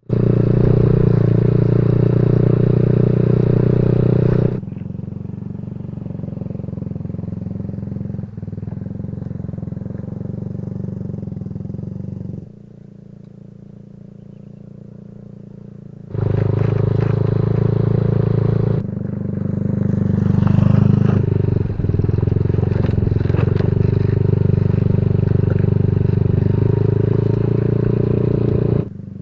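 Motorcycle engine running steadily while riding, heard in several stretches that change level abruptly where clips are cut together.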